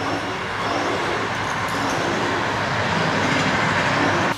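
Scale RC hydraulic excavator (a Volvo model) working, its hydraulic pump and valves making a steady whirring hiss as the boom swings and the bucket dumps soil into a tipper trailer. The sound grows a little louder and cuts off suddenly near the end.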